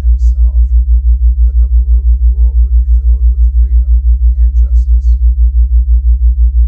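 Deep low tone pulsing about six times a second: a theta-wave brainwave-entrainment tone. Underneath it a faint, quiet voice is reading.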